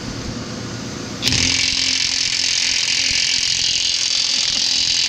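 DeWalt half-inch cordless impact wrench tightening a tine nut: it spins quietly for about a second, then its impact mechanism starts hammering, loud and steady, as the nut comes tight.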